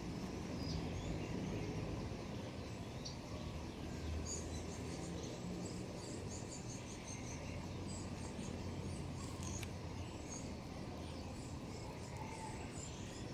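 Outdoor ambience: faint, scattered high bird chirps over a steady low background rumble.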